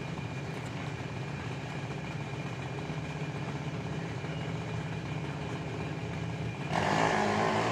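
Junior dragster engine idling steadily, with no revving. Near the end it gets louder as music comes in.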